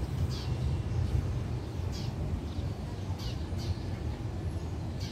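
Birds calling: about four short, high chirps that fall in pitch, spaced a second or so apart, over a steady low rumble.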